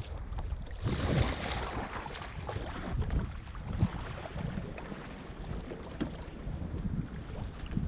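Wind buffeting the microphone and choppy water lapping against a plastic fishing kayak's hull, with a brief louder splash about a second in.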